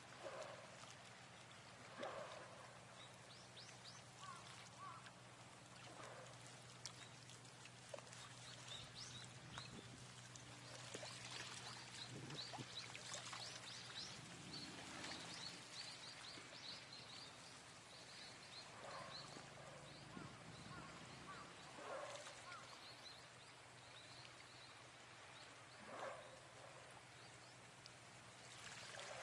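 Faint outdoor ambience with scattered bird calls: a run of short high chirps in the middle and a handful of lower calls every few seconds.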